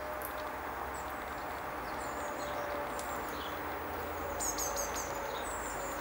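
Small garden birds chirping: scattered thin, high calls, with a quick run of about five high notes a little after halfway, over a steady low rush of background noise.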